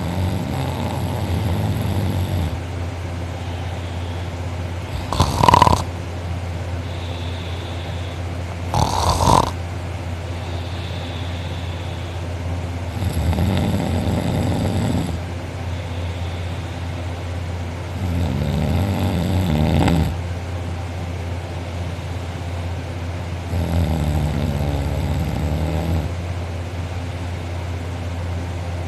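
A man snoring really loud in a deep sleep, each snore a rasping breath of about two seconds, coming every five seconds or so. Two brief sharp noises break in about five and nine seconds in, over a steady low hum.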